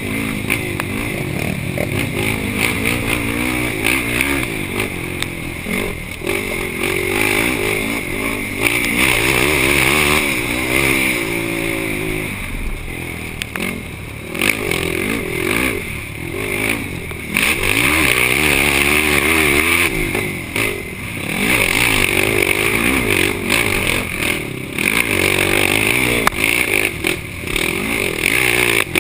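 Yamaha YFZ450 ATV's single-cylinder four-stroke engine racing over rough ground, revving up and dropping back again and again as the throttle opens and closes, with scattered knocks and rattles.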